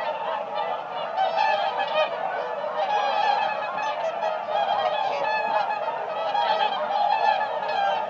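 A flock of swans calling: many overlapping calls make a dense, continuous chorus with no gaps.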